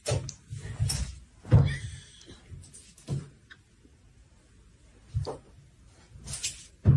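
A string of dull thumps and knocks at irregular intervals, about seven in all, with a brief higher scraping or rattling sound after the loudest knock near two seconds in.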